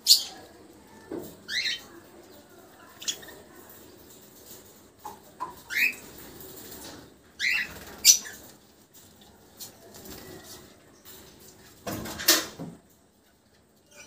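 Budgerigar chicks giving several short, squeaky chirps that rise in pitch, among faint rustling and a few sharp knocks, the loudest near the start and about 8 and 12 seconds in.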